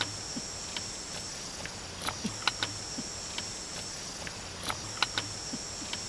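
Steady high insect drone, with scattered light clicks and knocks as bamboo shoots are handled and set down on a rack of wooden sticks over embers.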